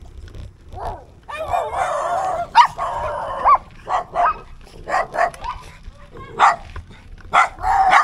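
A dog barking loudly: a dense run of wavering barks, then single sharp barks every half second to a second.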